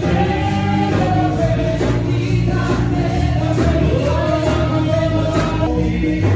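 Gospel choir singing a worship song, with a steady bass and percussion beat. A little before the end the sound changes abruptly to a sparser passage.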